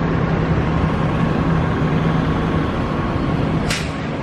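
A heavy engine running steadily under street traffic noise, with a short sharp snap about three and a half seconds in.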